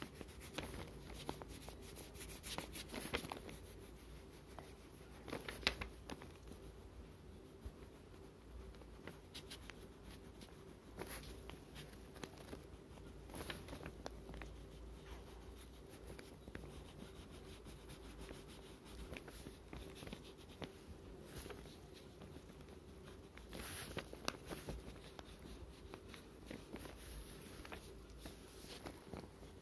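Faint scratching of a wax crayon rubbed over drawing paper while colouring, with a few brief louder scrapes or taps, over a faint steady hum.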